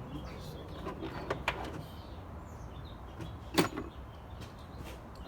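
Scattered light clicks and taps of hand work on a truck battery's terminal connections, with one louder knock about three and a half seconds in, over a steady low hum.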